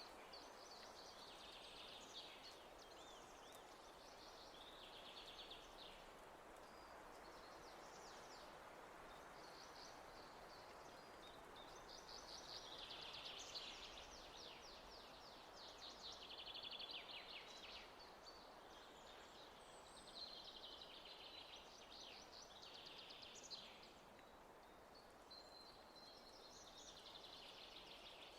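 Faint songbirds singing, in repeated trills and chirps, over a steady soft hiss of nature ambience.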